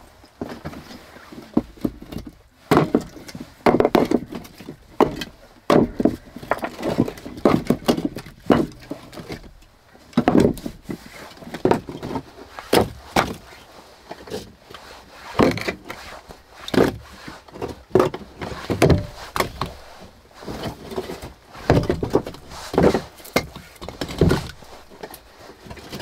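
Split firewood being stacked: logs set down on one another one at a time, giving wooden knocks and clatters about once a second.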